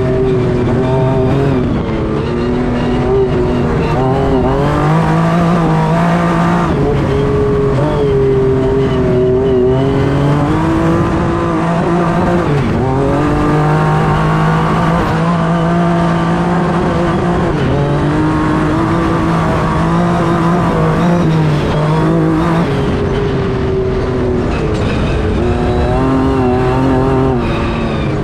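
Honda Ridgeline Baja race truck's engine running hard at high speed, heard from inside the open cab. Its note rises and falls several times over a constant low rumble.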